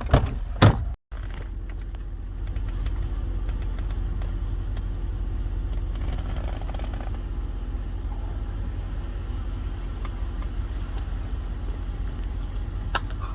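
Steady low rumble of a motor vehicle engine running, with a constant hum. Two sharp clicks come just before a brief cut about a second in, and another sharp snap comes near the end.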